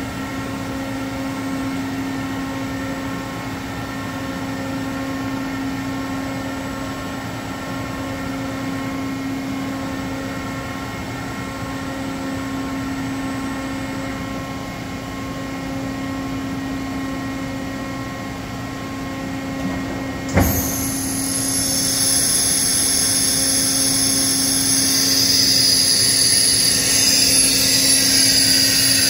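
Doosan DCM 2740 CNC bridge mill running, a steady machine hum with several held tones as its ram and head move. About two-thirds through there is a sharp clunk, then a loud high-pitched whine sets in and rises in pitch near the end as the spindle spins up.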